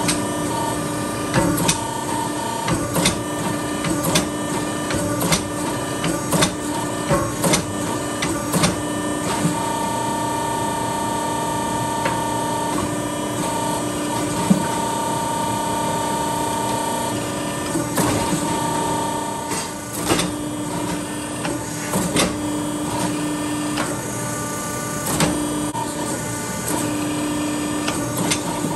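Hydraulic forging press running while it punches the eye in a hot steel axe billet: a steady machine hum with a higher tone that comes and goes, and scattered clicks and knocks of steel on steel.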